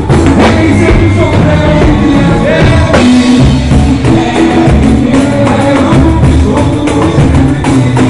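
Live pagode band music: drum kit and hand percussion keep a steady samba beat under singing, loud throughout, with the music changing about three seconds in.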